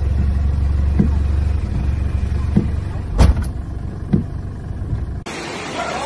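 Car heard from inside the cabin, driving along a flooded street: a steady low rumble of engine and road with several dull thumps. It cuts off suddenly about five seconds in.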